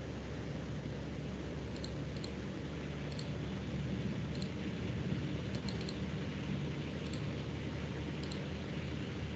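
Scattered faint clicks of a computer mouse and keyboard, irregularly spaced, over a steady background noise with a low hum.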